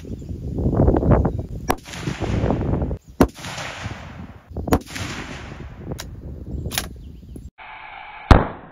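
6.5 Creedmoor bolt-action rifle firing: several sharp reports, each trailing off in echo. Near the end, one very loud crack, the loudest of all, comes from the target end as a bullet strikes the ballistics gel block.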